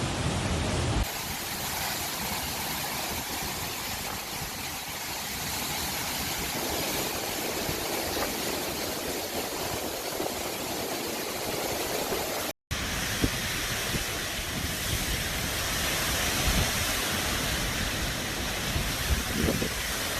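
Steady rushing noise of hurricane wind and heavy rain, with abrupt changes about a second in and, after a split second of silence, about twelve seconds in.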